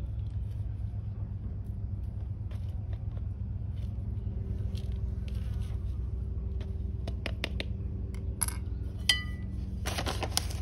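Faint scraping and crumbling of potting soil being worked loose in a plastic pot with a small metal hand cultivator, over a steady low hum. Near the end the metal tool clinks down onto the brick ledge with a brief ring, followed by a short burst of rustling.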